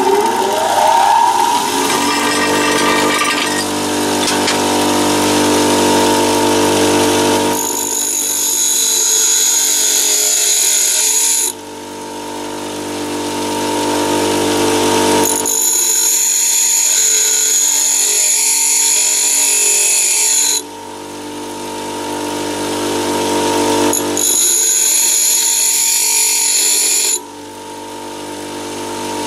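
Bench grinder switched on, its motor whine rising as it winds up to speed in the first second or so, then running steadily. A twist drill's tip is pressed against the front face of the wheel three times, each pass a few seconds of high grinding hiss over the motor, as the end of the drill is ground flat.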